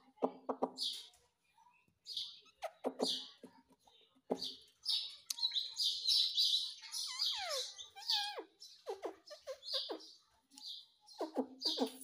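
Indian ringneck parakeet chirping and chattering in a string of short calls with brief gaps, including a few falling whistles around the middle.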